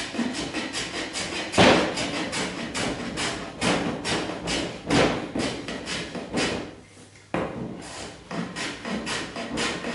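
Metal hand plane shaving wood in quick, repeated strokes, about three a second, with a short pause about seven seconds in.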